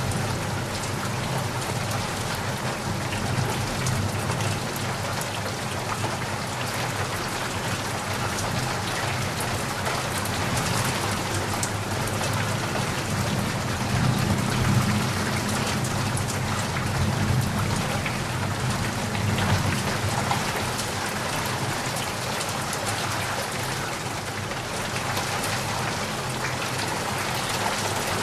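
Heavy rain falling steadily, a dense hiss of drop hits over a deeper, even wash.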